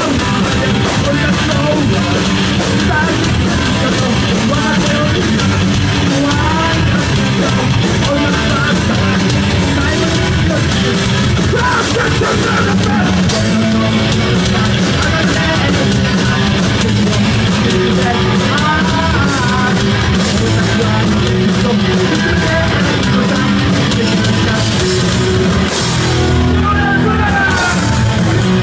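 Live punk band playing loud and fast: shouted vocals over distorted electric guitars, bass and drums, recorded from within the crowd.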